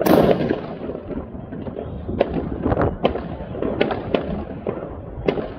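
Aerial fireworks exploding: a loud burst right at the start, then a string of separate sharp bangs every half second to a second.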